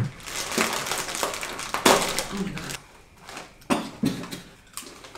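A crisp packet crinkling as it is opened, then the crunching of potato crisps being bitten and chewed in a few sharp bites.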